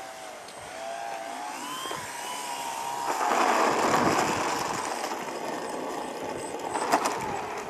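Electric RC plane's ECO 2820 brushless motor and 13x6.5 propeller whining, the pitch wavering up and down with the throttle. About three seconds in, a louder rushing swells and fades as the plane runs along the runway, with a sharp tick near the end.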